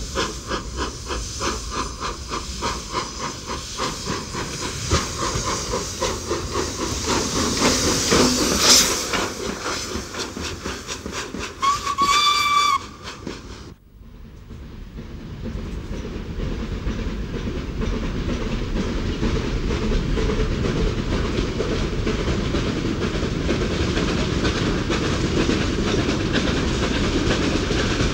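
Steam locomotive running, heard from the footplate: fast, even exhaust beats with hissing steam, then a short blast on the steam whistle about twelve seconds in. After a sudden cut, a steam train approaches with a steady rumble that builds and holds.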